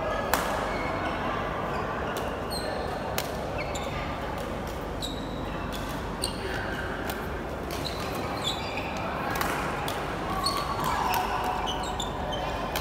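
Badminton rally: repeated sharp racket strikes on the shuttlecock, with short high squeaks of shoes on the court floor and a murmur of voices behind.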